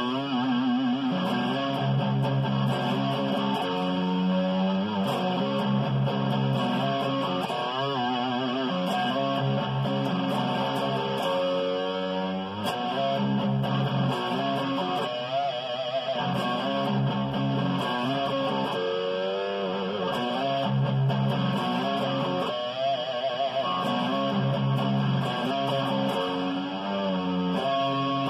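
Ibanez electric guitar played with a pick: a continuous run of single-note lead lines, with wide vibrato on the held notes, over a steady pattern of lower notes.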